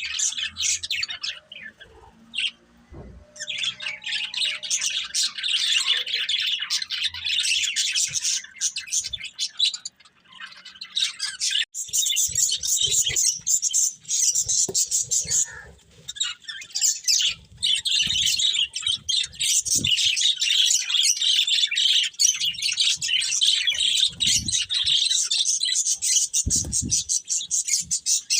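Budgerigars chattering and warbling, a dense stream of rapid high chirps with short lulls about two seconds in and about ten seconds in. A few soft low knocks sound under the chatter.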